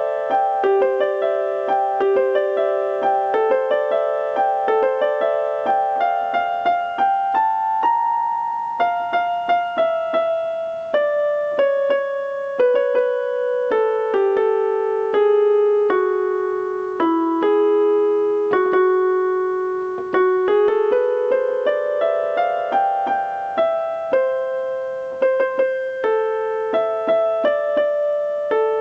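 Piano music: a slow, gentle melody of struck notes over flowing broken chords, played in the middle and upper range with little bass.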